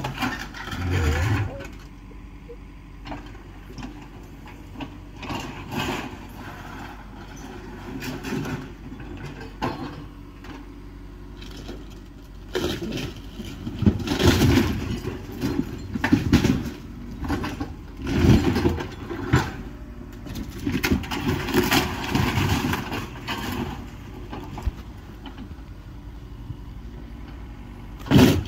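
Excavator's diesel engine running steadily while its grapple works a demolition pile, with irregular crashes and crunches of broken lumber and sheet metal, loudest in bursts about halfway through and near the end.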